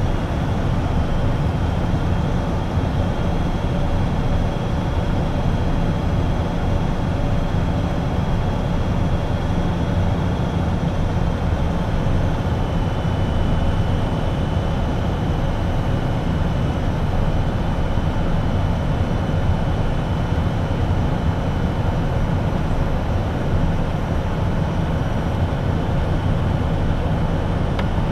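Steady in-cockpit noise of an Embraer Phenom 100 jet on approach: airflow noise with the high whine of its twin Pratt & Whitney PW617F turbofans. The whine drops slightly in pitch about twelve seconds in.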